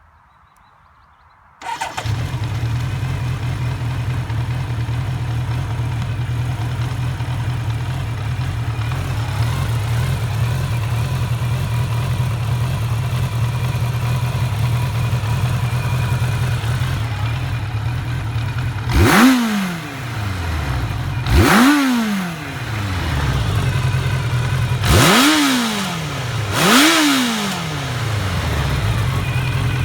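Honda CB900F Bol d'Or's inline-four engine starting warm a couple of seconds in and settling into a steady idle, with four quick throttle blips in the second half, each rising in pitch and falling back to idle.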